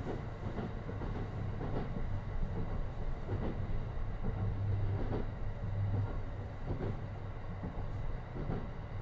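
JR East E235-1000 series electric train running between stations, heard from inside its double-deck green car: a steady low rumble of wheels on rail with a hum that swells about halfway through, and a few faint knocks.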